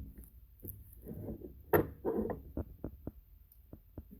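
Parts of a dismantled transfer case being handled: shuffling and scraping, a sharp knock just under two seconds in, then a run of light, separate clicks.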